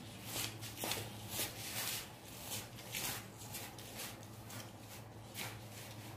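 A person chewing a mouthful of stir-fried egg noodles close to the microphone: about a dozen irregular wet smacks of mouth and lips, over a low steady hum.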